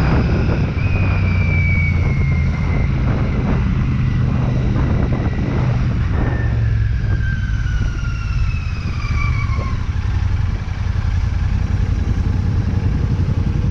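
Royal Enfield Shotgun 650's 648 cc parallel-twin engine running steadily while riding. A few high tones slide down in pitch in the middle.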